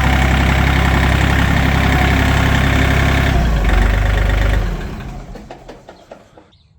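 ATV (four-wheeler) engine running at idle, then switched off: about two-thirds of the way in it slows and dies away over roughly two seconds.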